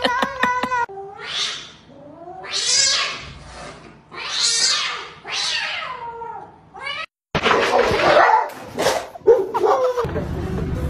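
Domestic cat yowling: a series of about five drawn-out, wavering caterwauls, one after another. After a brief break, a stretch of harsh, noisy sound follows.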